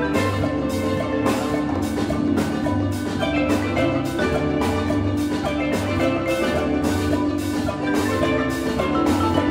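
Steel pan ensemble playing with marimba, electric bass and drum kit: ringing steel pan chords and melody over a bass line and a steady beat.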